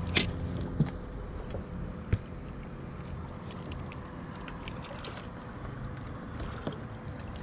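Boat motor running steadily, with a few sharp knocks and taps on the boat.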